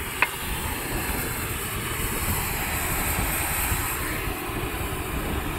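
Steady rushing machine noise from rail-welding equipment working on the track, with one sharp metallic clink just after the start.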